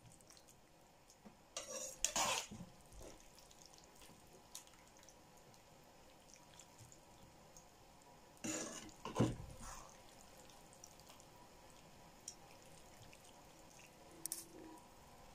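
A spoon serving stewed cabbage onto a plate: short clusters of scraping and knocking against the crockery and pan, about two seconds in and again about eight and a half seconds in, with a brief clink near the end.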